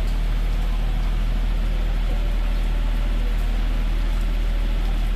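Steady hiss of heavy rain over a continuous low electrical hum.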